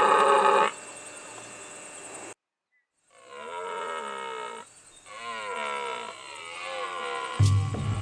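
Rutting deer roaring: drawn-out, deep, moaning calls from stags or bucks in the roar. The calls waver and bend in pitch, with a brief break in the sound a few seconds in. Near the end music with a deep, throbbing beat cuts in.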